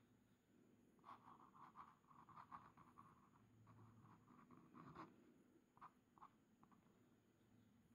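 Faint scratching of a Bungubox x Synchronicity glass dip pen nib on a paper swatch card as it writes in cursive: a run of strokes starting about a second in, a light tick about five seconds in, then a few short strokes.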